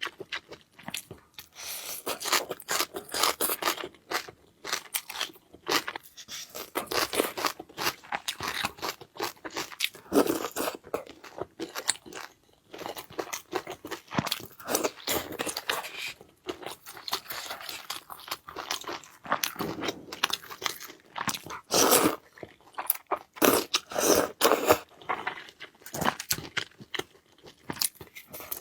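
Close-miked eating: a person biting and chewing crunchy food in quick, irregular crackling bites, with short pauses between mouthfuls.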